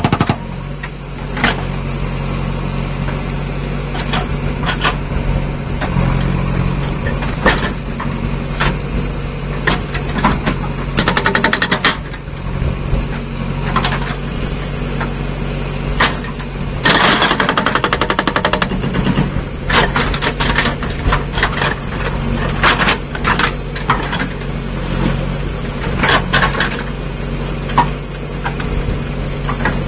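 Indus SAGA70 hydraulic rock breaker on a backhoe loader hammering in rapid repeated blows, coming in bursts that strengthen and ease, over the steady running of the backhoe's diesel engine.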